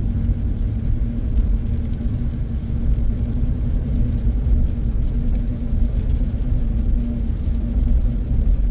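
Steady low rumble of a car driving on wet pavement, heard from inside the cabin: engine and tyre noise with a steady hum underneath.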